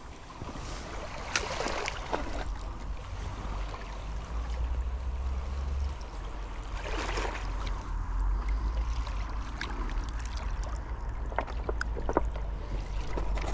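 Wind on the microphone gives a steady low rumble, while surf washes up the beach in swells about a second and a half in and again about seven seconds in. A few faint clicks come near the end.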